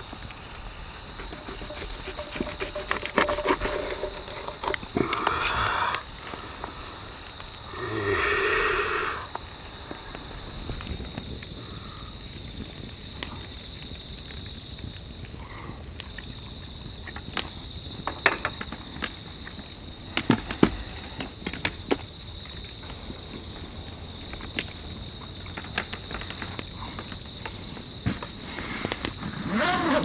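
Night insects chirping in a steady, evenly pulsing high-pitched chorus, with scattered sharp clicks and one brief louder sound about eight seconds in.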